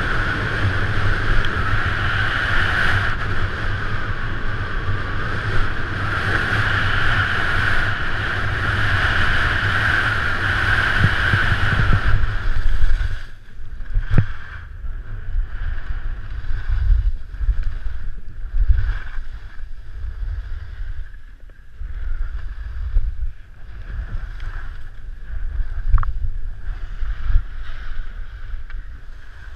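Wind rushing over a GoPro's microphone and skis running on packed snow during a fast ski descent: a loud, steady rush that drops sharply about twelve seconds in to a lower, uneven, gusty rumble with a few light knocks.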